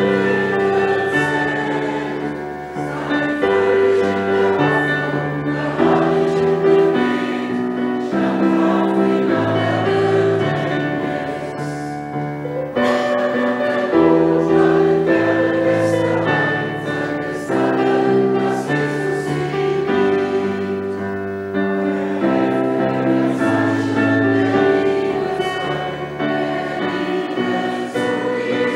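Voices singing a German hymn in unison to electronic keyboard accompaniment, with held chords changing every second or so.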